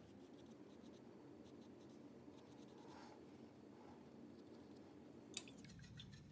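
Faint swishing of a paintbrush working paint onto paper, with one light tap a little over five seconds in.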